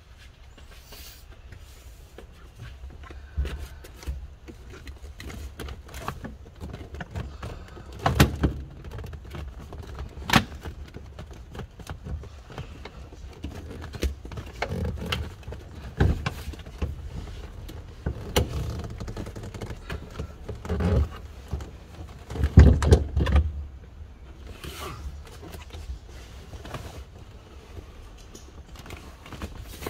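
A Toyota Alphard/Vellfire 20-series third-row seat being worked loose and lifted out of its floor rails: irregular clunks and knocks of the seat frame and mechanism, with rustling and shuffling between them. The loudest knocks come about eight and ten seconds in and again a little after twenty seconds.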